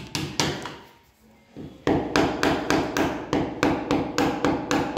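Combination pliers used as a hammer, tapping fixings into holes drilled in ceramic wall tile. A few scattered metal taps, then from about two seconds in a fast, even run of about three to four taps a second.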